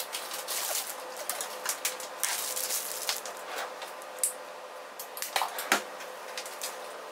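Disposable plastic piping bag crinkling in the hand as hazelnut praliné cream is squeezed out, a scattered run of small sharp crackles and taps over a faint steady hum.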